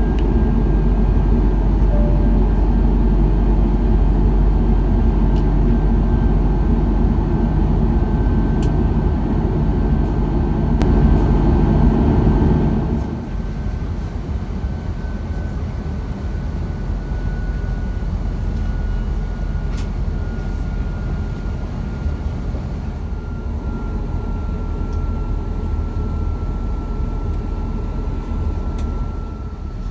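Airbus A330 cabin noise in flight: the steady rumble of the engines and airflow, with a thin high whine that slowly falls in pitch. About halfway through, the engine noise drops noticeably and stays lower as the engines spool down.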